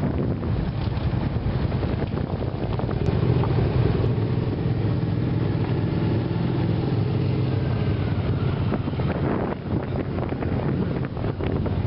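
Motorcycle engine running steadily at low riding speed, heard from on board the bike, with wind noise on the microphone.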